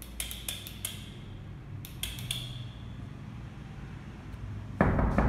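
Light metallic clinks: a few quick ones with a short ring, then another cluster about two seconds in, and a louder, noisier rattle near the end.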